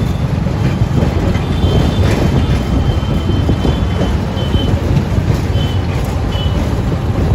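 Ride in an open-sided auto-rickshaw in city traffic: a steady low rumble of the three-wheeler's engine and road noise, with several short high horn beeps from the surrounding traffic.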